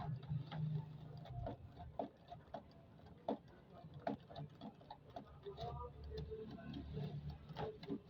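Screwdriver turning out the cross-head screws of an electric router's housing: irregular small clicks and ticks, a few each second.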